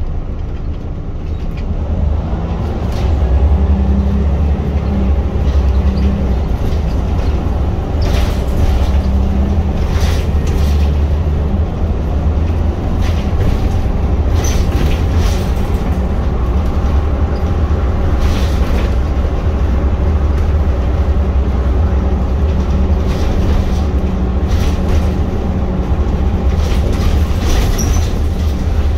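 Scania L94UB single-deck bus heard from inside the saloon while under way: the diesel engine gives a low, steady drone that grows louder about three seconds in. Occasional rattles and knocks come from the bus body.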